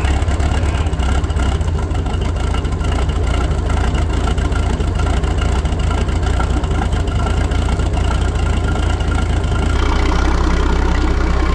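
Old MerCruiser boat engine running steadily at idle out of the water, kept alive by a hot-wired ignition coil after the coil lost its 12 volts once the starter cut out.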